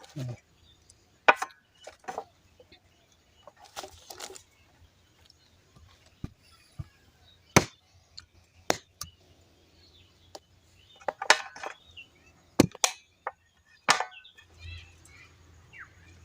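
Goat intestine being chopped with a knife: a dozen or so sharp, irregular chopping strikes, roughly a second apart, some in quick pairs.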